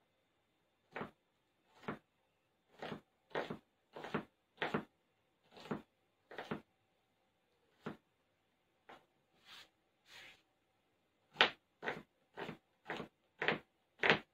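Kitchen knife slicing small red onions on a plastic cutting board: a string of sharp knife taps on the board, about one or two a second, softer for a few seconds in the middle and quicker near the end.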